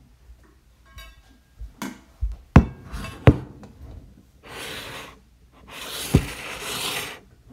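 A metal popcorn maker being picked up and turned on a table: a run of clunks and knocks, then two stretches of scraping as it slides across the tabletop, with a thump during the second.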